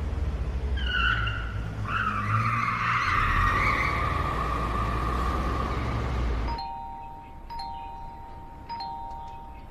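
A car driving with its tires squealing for several seconds over the engine and road rumble. The sound cuts off suddenly and is followed by an electronic doorbell ringing, its two-tone chime starting three times about a second apart.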